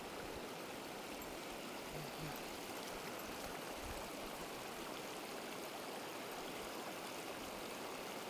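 Shallow mountain river rushing steadily over stones in a riffle, with an even, unchanging wash of water noise.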